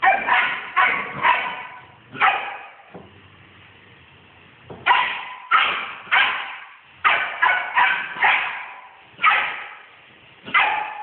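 Belgian Shepherd dog barking in quick volleys of one to four barks, about fourteen in all, each bark sharp and fading fast.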